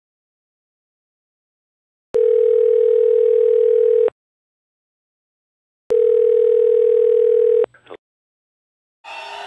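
A steady electronic beep tone, like a telephone tone, sounds twice for about two seconds each, with dead silence between. Crowd noise starts near the end.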